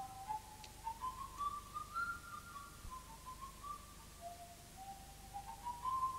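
A person whistling a slow, wandering tune, one clear note at a time, stepping up and down. The whistling is softer in the middle and louder again near the end.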